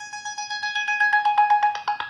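A Samsung Galaxy S2 ringtone: a plucked-string, mandolin-like tune in rapid repeated picked notes. It dwells on one note that swells past the middle, and the quick separate picking resumes near the end.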